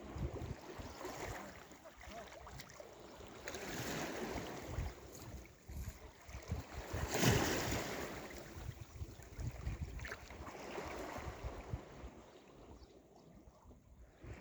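Sea waves surging and washing in, swelling three times with the loudest about halfway through, while wind buffets the microphone.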